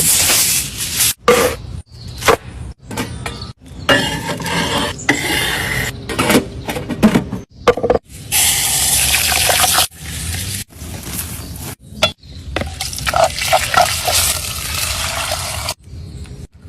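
A quick series of short cooking sounds cut hard one after another, with liquid being poured among them. One steady hissing stretch lasts about a second and a half near the middle.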